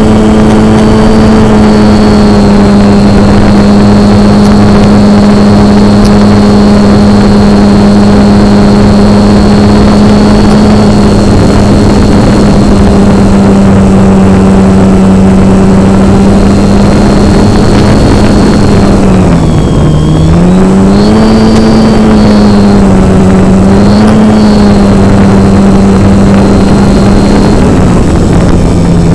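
Model airplane's motor and propeller running at a steady pitch over rushing noise. About two-thirds of the way through, the pitch drops sharply and climbs back, then wavers up and down as the throttle changes.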